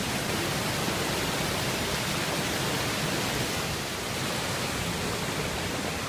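Waterfall and mountain stream rushing over rocks: a steady, even roar of water.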